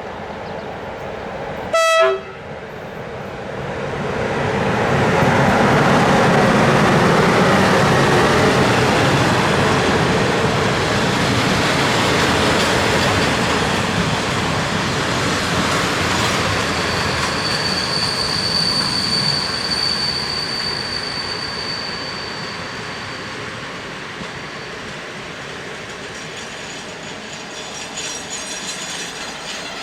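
Short horn blast from a Romanian EA-class electric locomotive, then the train passing: the rumble of the locomotive and coaches swells, stays loud for several seconds and slowly fades. A thin high squeal from the wheels comes in around the middle.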